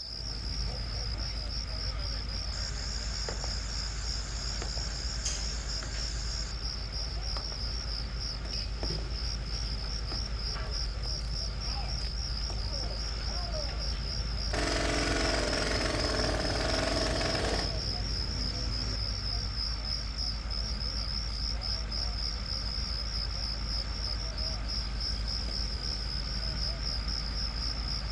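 A steady, high insect trill, pulsing finely and without pause, over a low hum. About fifteen seconds in, a louder rushing noise with a low drone lasts around three seconds.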